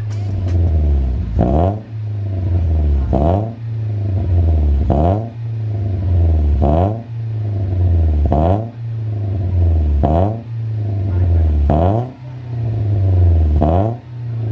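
Nissan Grand Livina's four-cylinder engine blipped repeatedly through a full-system NDK racing exhaust (4-2-1 header, straight resonator, Pro Silent-R muffler). There are about eight quick revs, one every second and a half or so, each rising in pitch and falling straight back to a low idle rumble.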